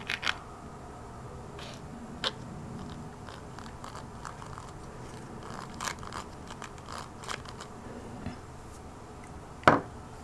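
Light plastic clicks and taps as 3D-printed plastic gears are handled, slid onto steel pin shafts and seated on a plastic gearbox plate, with one louder knock near the end.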